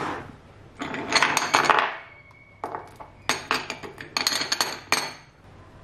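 Small bottles and a metal candle wick trimmer being set down and shifted in a tray: clusters of light clinks and taps, starting about a second in and repeating until near the end.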